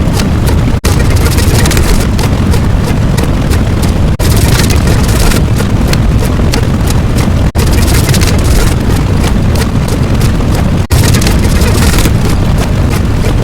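A loud, continuous rumbling roar, cut off for an instant about every three and a half seconds as if one clip were looped.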